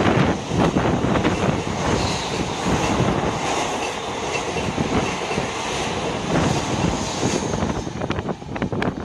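Express passenger train passing at speed: a steady loud rumble of coaches with rapid wheel clatter over the rail joints, easing slightly near the end.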